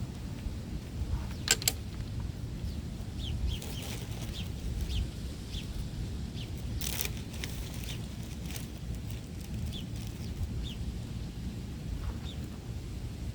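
Short, high bird chirps, each dropping slightly in pitch, repeating on and off over a steady low rumble, with two sharp clicks, one early and one about halfway.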